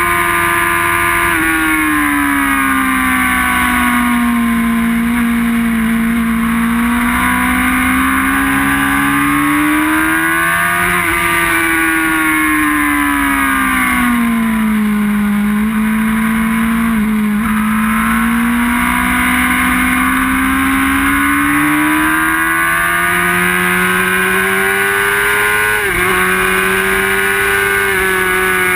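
Onboard sound of a sport bike's inline-four engine running hard on a racetrack, its note sinking slowly and climbing again several times as the rider eases off and accelerates, with a short dip near the end. Wind rushes over the microphone throughout.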